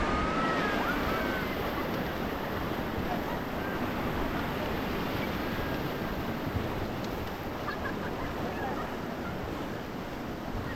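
Fast-flowing river water rushing steadily, a dense even noise.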